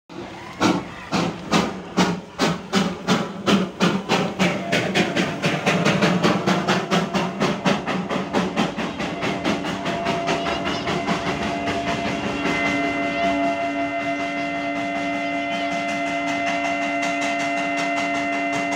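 Darjeeling Himalayan Railway B-class coal-fired steam locomotive pulling away, its exhaust chuffing about two beats a second at first and quickening until the beats blur into a continuous rush. About halfway through, a steady pitched tone comes in and holds.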